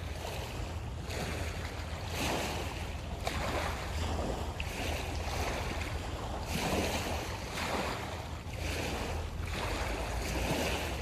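Small waves washing in on the shore in repeated surges every second or two, over a steady low rumble of wind on the microphone.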